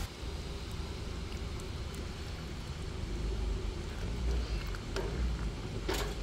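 A wooden spoon stirring thick mince sauce in a stainless steel pot on a camping gas stove, with faint scrapes and a sharp knock of the spoon against the pot just before the end, over a low rumble of wind on the microphone.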